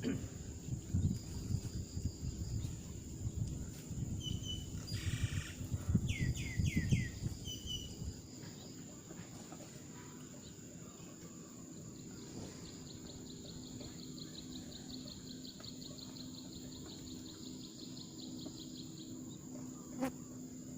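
Birds chirping in short falling calls and insects buzzing steadily, with a rapid pulsed trill joining about halfway through. A low rumbling noise runs under the first third and then stops.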